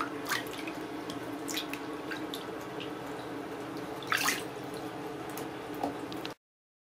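Water running and splashing over a wet Ragdoll kitten during a bath, with small drips and a louder splash about four seconds in. It cuts off abruptly near the end.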